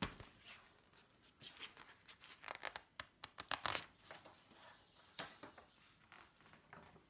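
Paper rustling and crinkling with small knocks, as the pages of a picture book are handled and turned: a thump at the start, then a busy run of sharp rustles in the middle, tapering off.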